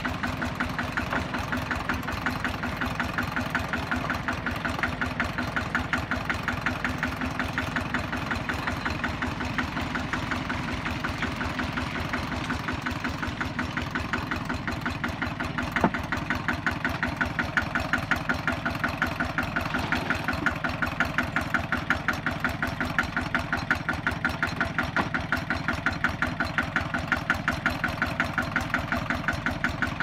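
A diesel engine idling steadily with a fast, even pulse. One sharp knock stands out about halfway through.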